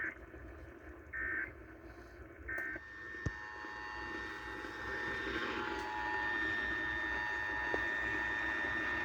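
Three short bursts of Emergency Alert System data tones about a second apart: the end-of-message signal that closes an EAS test. A steady hiss with faint held tones then runs on.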